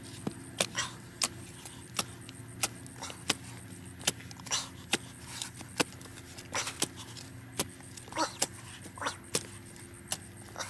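Metal spade blade chopping and scraping into dry, clumpy soil: irregular sharp knocks and scrapes, about one or two a second.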